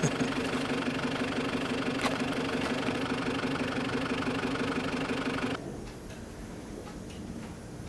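A steady mechanical hum, like a motor or engine running, holding one pitch. It cuts off abruptly a little over five seconds in, leaving a quieter room tone.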